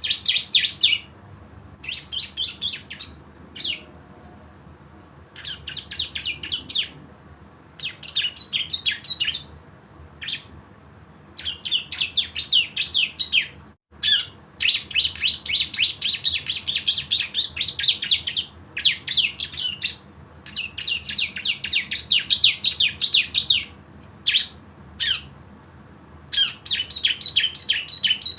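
A ciblek semi (a prinia kept as a songbird) singing its 'ngebren' song: rapid machine-gun trills of fast, high repeated notes in bouts of one to four seconds with short pauses between them. This fast burst song is used as a lure recording to set other birds singing.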